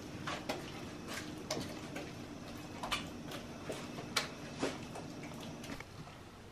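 Irregular light clicks and taps, roughly two a second, over a faint steady hum that stops near the end.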